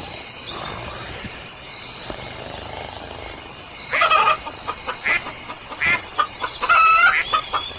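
Steady chirring of crickets, with a hen clucking several times in short calls from about halfway through.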